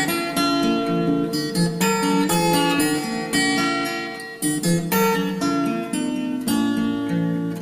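Background music: strummed acoustic guitar with plucked notes.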